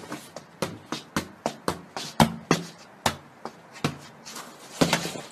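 A football being juggled: a run of sharp thuds as the ball strikes the foot and knee, about three touches a second.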